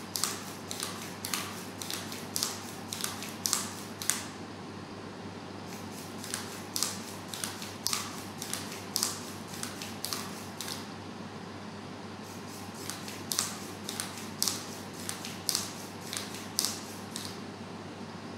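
Joint motors of a segmented snake robot giving short, sharp mechanical bursts, about two a second, as its body bends to crawl. The bursts pause briefly a few times over a low steady hum.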